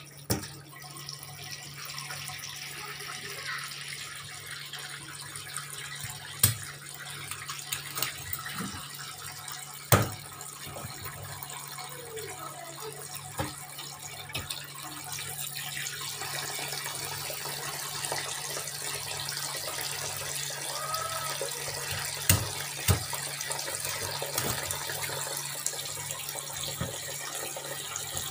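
Kitchen tap running steadily into a sink and a basin of water as pieces of fish are rinsed under the stream. A few sharp knocks come now and then, and the water grows a little louder about halfway through.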